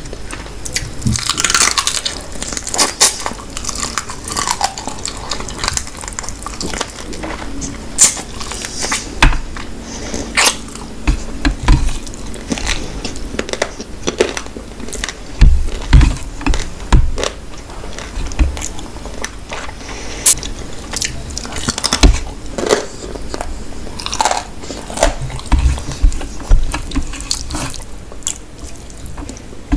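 Close-miked eating sounds: fingers mixing rice into wet duck masala gravy on a steel plate, with chewing. Many short sharp wet clicks, with a few heavier thumps about halfway through.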